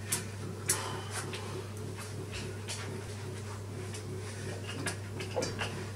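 Scattered light clicks and knocks, several over a few seconds, from tools and parts being handled, over a steady low hum.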